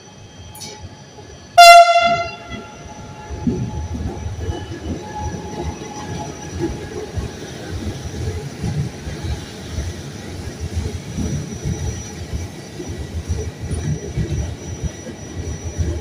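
A Trenitalia Jazz electric train gives one short, loud horn blast about two seconds in. It then runs past with a steady low rumble and irregular wheel thumps on the rails.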